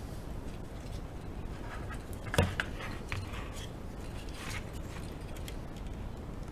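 Handling noises of small objects on a work surface: light rubbing and scattered clicks, with one sharper knock about two and a half seconds in, over a steady low hum.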